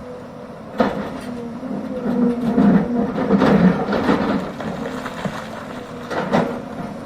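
Hidromek excavator working: its diesel engine runs steadily, rising and falling with load, with sharp knocks about a second in and again near the end.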